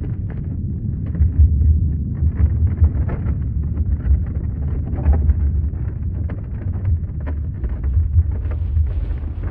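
Earthquake rumble: a deep, continuous low rumble with irregular crackling and rattling over it.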